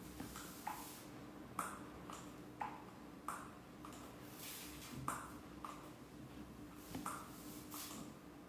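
Faint, soft dabbing and patting of fingers on skin as makeup is pressed in along the forehead hairline: a string of short light taps, about one a second.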